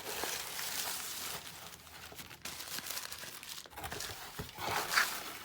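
Crinkle-cut paper shred packing fill rustling and crinkling as hands dig through a mailing box, with a louder rustle about five seconds in.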